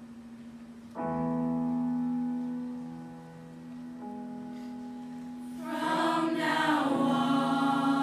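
Soft sustained accompaniment chords, changing once, then a mixed choir of young voices comes in singing about two-thirds of the way through, louder than the chords.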